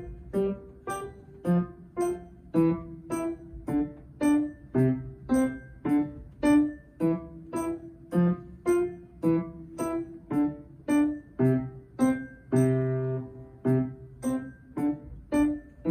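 Acoustic upright piano played at a steady, even pace of about two notes a second, each note struck and left to ring, with a longer held chord about three quarters of the way through.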